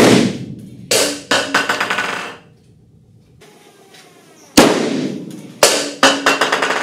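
Hydrogen–air mixture in a shoestring potato can exploding with a sharp bang that blows its top off, followed by the empty metal can clattering and rolling on the lab bench with a ringing rattle. The bang and clatter come twice, the second time about four and a half seconds in.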